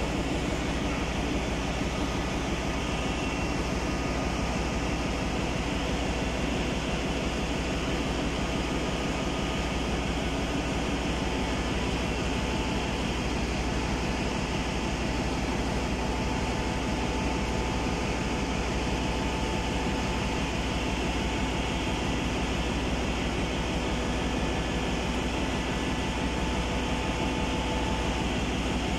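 Steady, loud drone of ship's engine-room machinery, with a fast low pulsing underneath and no distinct knocks or clanks.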